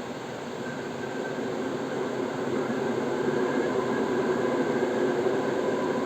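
A train running on the track: a steady rumble that grows louder over the first three seconds or so, then holds steady.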